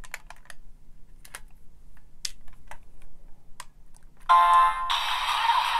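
Kamen Rider DX Beat Raise Buckle toy clicking as it is handled, several separate plastic clicks, then about four seconds in its small speaker starts a short electronic chime that runs straight into music.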